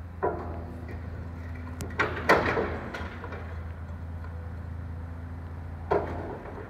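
Demolition excavator running steadily while its jaw attachment tears at a block wall, with about four sudden crashes of breaking masonry and debris. Two of them come close together about two seconds in, the second the loudest, and the last comes near the end.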